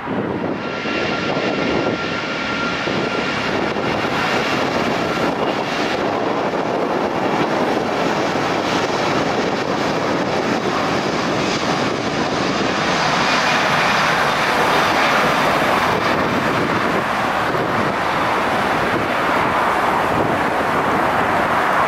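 Wide-body jet airliner's engines giving a loud, steady rush of jet noise, with a thin whine over the first few seconds. The noise swells louder about halfway through as the aircraft passes.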